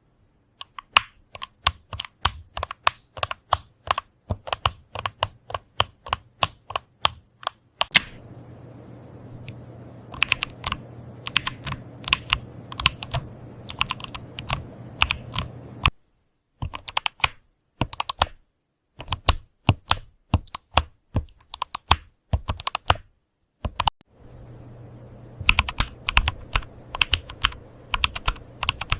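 Typing on a computer keyboard: fast, irregular keystroke clicks in several short spliced segments, some with a steady low hum behind them and brief dead-silent gaps between them.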